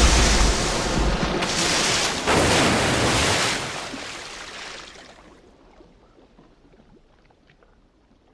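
Explosion sound effect: a loud rush of noise that surges again about two seconds in, then dies away over several seconds with faint crackles.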